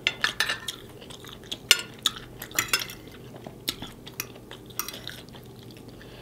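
Fork clinking and scraping against a plate while picking up greens: irregular light clicks and taps, a few a second.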